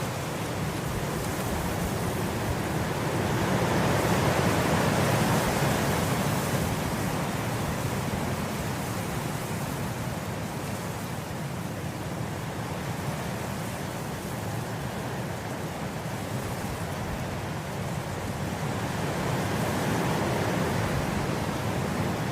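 Wind blowing through grass, a steady rush that swells in gusts, the strongest about four seconds in and another near the end.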